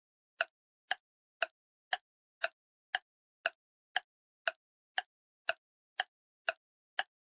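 Ticking sound effect: sharp, evenly spaced ticks about two a second, with silence between them.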